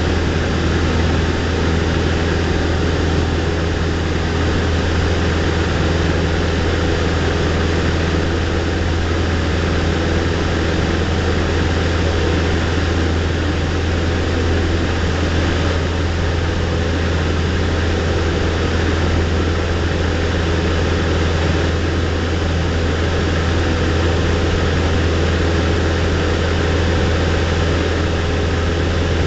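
Light aircraft's piston engine and propeller running steadily, heard inside the cabin as a loud, unchanging low drone with a rushing hiss over it.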